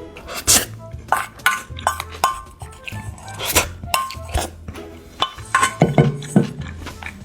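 Cutlery clinking and tapping against dishes during a meal, a rapid series of sharp clinks, several ringing briefly, over background music.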